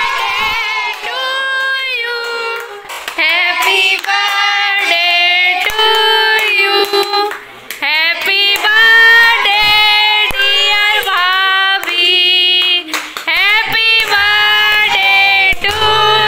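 A high voice singing a slow melody in long held, wavering notes, mostly without accompaniment; a low beat joins near the end.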